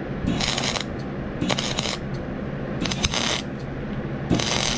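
Electric arc welder crackling in four short bursts about a second and a half apart, over a steady low hum: quick stop-start welds being laid on a broken steel rake.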